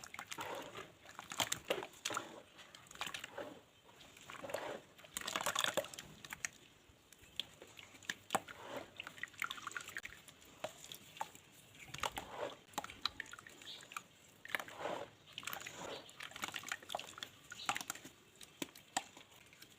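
Wet mud being squished and crumbled, giving irregular wet squelches and crackles.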